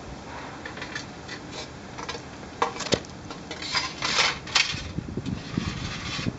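A metal tray lined with paper towels being handled and slid across asphalt: scraping and paper rustling, with a couple of light clinks about three seconds in. The tray is being set under the engine as the oil drain pan.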